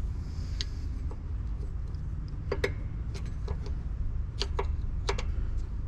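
Irregular sharp clicks from the front drum-brake shoe adjuster of a 1963 VW Beetle being turned with a screwdriver through the adjusting hole in the drum. Most of the clicks come in the second half, over a steady low hum.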